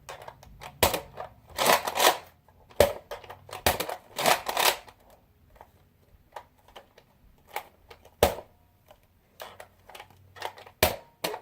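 Nerf Rough Cut 2x4 spring-powered blaster being handled and cycled: a run of plastic clicks and clacks with a few short sliding rasps, and two sharper knocks later on. This is another attempt to make it fire in its two-dart shotgun mode.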